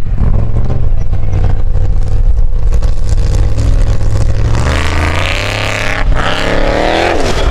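Engine of a Willys CJ5 Formula Offroad jeep working under load on a steep climb. A deep steady rumble about halfway through gives way to hard revving that rises in pitch, breaks off briefly, then climbs again.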